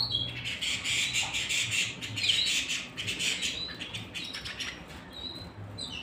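Caged canaries singing: a loud, rapid trilling song for about three seconds, then a few short, softer chirps near the end.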